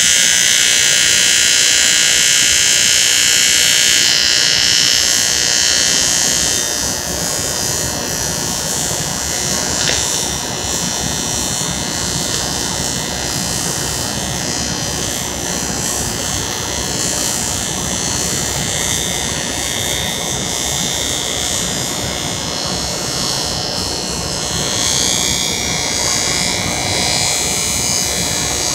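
TIG welding arc buzzing steadily as a weld is run around a metal pipe tee joint, dropping slightly in level about six seconds in.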